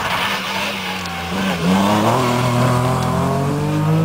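Rally car engine pulling hard: a steady note that dips briefly about a second and a half in, then rises steadily in pitch as the car accelerates.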